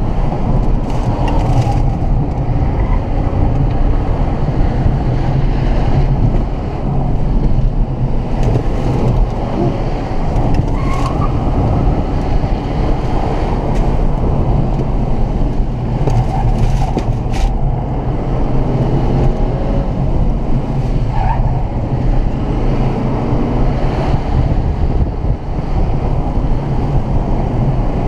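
Interior sound of a Mercedes-Benz CLA250 under way: its turbocharged four-cylinder engine running with tyre and road noise, a steady low rumble heard inside the cabin.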